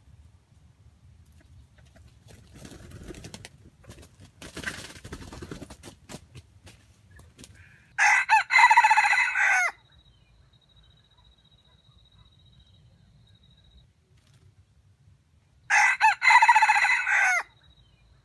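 Red junglefowl rooster crowing twice, about seven seconds apart; each crow is short and clipped, about a second and a half long, opening with two quick notes before the longer main note.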